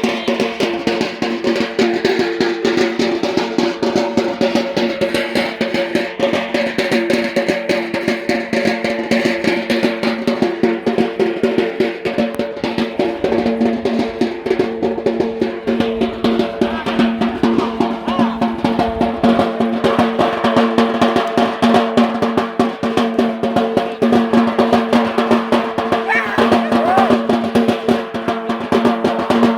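Traditional Yemeni drums beating fast and without pause, the accompaniment to the bara' dance, over a steady held pitched tone.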